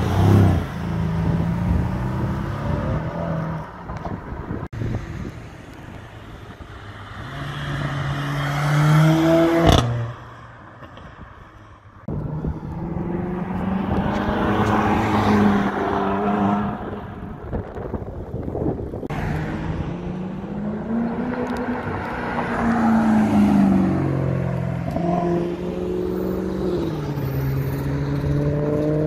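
Performance cars accelerating past one after another, including a Mercedes-AMG C63 coupé's twin-turbo V8. Each deep exhaust note climbs in pitch as the car pulls away. There are abrupt breaks between passes.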